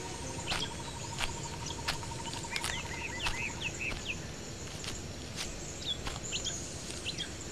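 Rural nature ambience: small birds chirping in short falling notes over a steady high insect drone, with an even pulsing trill that stops about halfway through.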